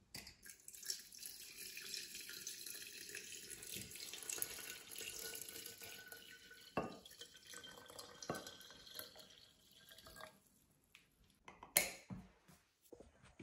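Boiling water poured from a glass measuring jug into a large glass jar of plums, a steady splashing trickle that thins out and stops about two-thirds of the way through. A single knock follows near the end.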